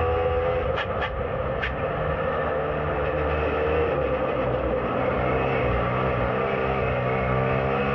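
Rotax Max 125cc two-stroke kart engine running at speed, heard from onboard the kart. Its pitch sags slightly midway through a corner and climbs again as it accelerates.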